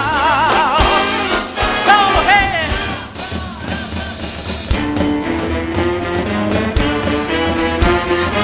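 Live big band music: a singer holds notes with vibrato over the band, a cymbal wash rings out about three seconds in, and then the band plays on with steady sustained notes.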